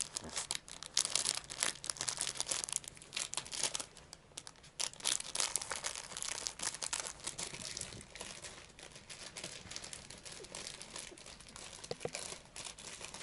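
Crinkly plastic wrappers crackling and rustling as a chihuahua paws, noses and bites at them. The crackling comes in quick irregular bursts, busiest in the first half and thinning out later.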